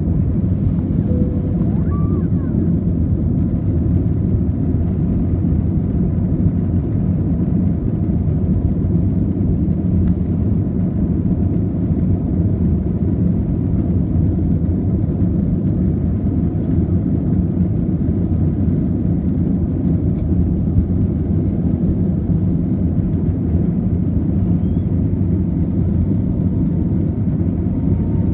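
Cabin noise of an Airbus A320-family airliner climbing just after takeoff: the jet engines and rushing air make a steady, loud low rumble.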